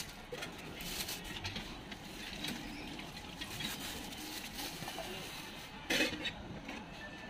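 Light clinks and clatter of utensils at a street-food griddle, with one louder sharp clatter about six seconds in, over a steady background hum of the stall.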